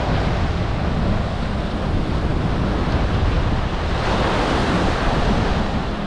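Small ocean waves breaking and washing up the sand, with wind buffeting the microphone. A wave breaks louder about four seconds in.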